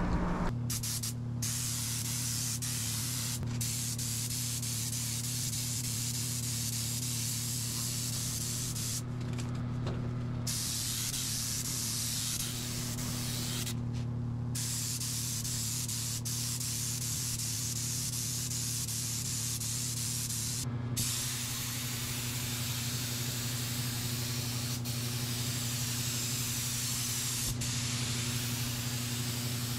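Air-powered gravity-feed paint spray gun hissing steadily as paint is laid on, with the hiss stopping briefly a few times. A steady low hum runs underneath.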